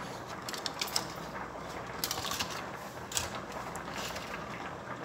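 A spoon clicking and tapping against a bowl a few times as dollops of curd are dropped onto raw chicken pieces, over a steady background hiss.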